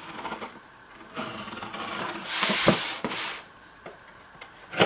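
A cutting tool slitting the packing tape on a cardboard box: scratchy scraping and tearing, loudest about two and a half seconds in, then a single sharp click near the end.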